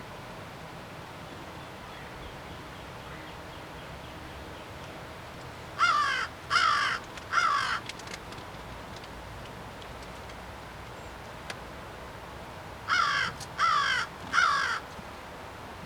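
A crow calling: two series of three harsh caws, each about half a second long, the second series coming about seven seconds after the first.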